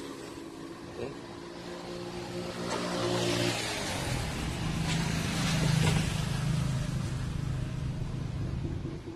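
A motor vehicle's engine running, its steady hum shifting lower about three and a half seconds in, growing louder toward the middle and fading near the end.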